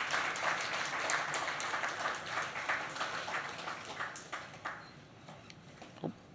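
Audience applauding, dying away over about five seconds.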